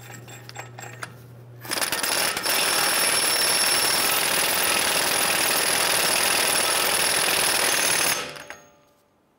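Impact wrench (Earthquake XT) hammering a front axle nut tight onto the wheel hub, running steadily for about six seconds from a couple of seconds in, then winding down near the end.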